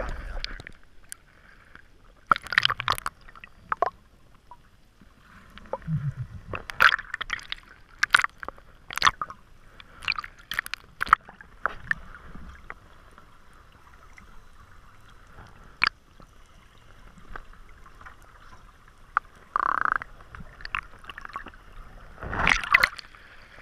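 Scuba diver's regulator breathing heard underwater: irregular gurgling bursts of exhaled bubbles with scattered clicks and knocks, the loudest cluster of bubbles near the end.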